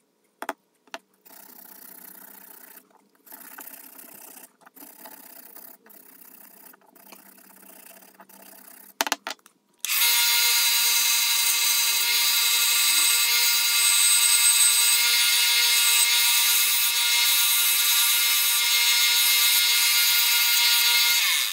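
Sandpaper rubbed by hand along a wooden hammer handle: quiet rasping strokes broken by short gaps. About ten seconds in, a small benchtop belt sander comes in much louder and runs steadily with a high whine.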